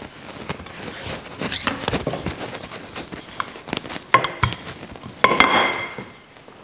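Pastry dough being pressed and rolled out with a wooden rolling pin on a kitchen benchtop: scattered soft taps and knocks, with two sharper knocks about four and five seconds in, the second ringing briefly.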